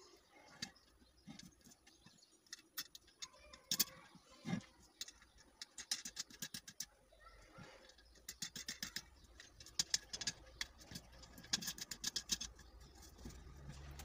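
Small metal parts clicking and scraping as a motorcycle tyre valve and its nut are fitted by hand into a hole in a metal fire extinguisher cylinder. A few scattered clicks at first, then quick clusters of sharp ticks through the second half.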